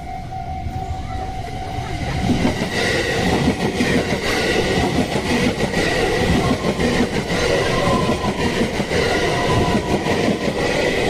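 JR West 287 series limited-express electric train passing over a level crossing. Its rumble and rapid wheel clatter rise about two seconds in and carry on steadily, over the ringing of the crossing's warning bell.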